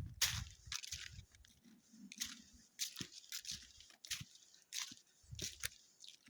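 Footsteps crunching through fallen autumn leaves on the forest floor, a walking pace of about two steps a second.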